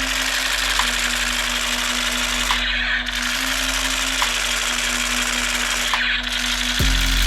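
Battery-powered toy gun firing on full auto: a steady, rapid mechanical rattle that eases off briefly twice.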